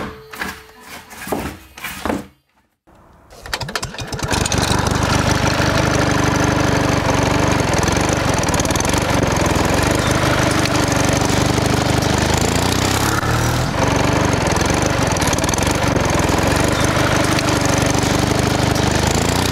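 A few knocks, a short pause, then a motor starts about three and a half seconds in and runs steadily and loudly until it cuts off suddenly at the end.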